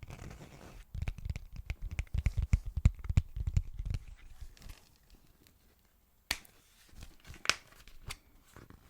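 Packaging crinkled and torn by hand: a dense run of rustling and crackling with soft thuds in the first half, then a lull and two sharp clicks.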